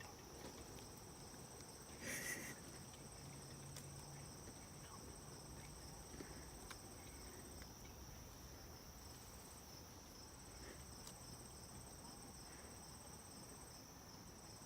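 Faint, steady high-pitched insect chirring with two tones, the higher one stopping and starting a few times. A brief rustling noise comes about two seconds in.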